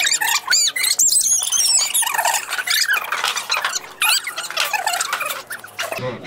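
A group of young people squealing and shrieking, many short high-pitched cries overlapping one another in excitement.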